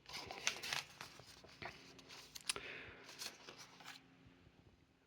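Faint, irregular rustling and light clicks of paper being handled, as of a picture book's pages being turned.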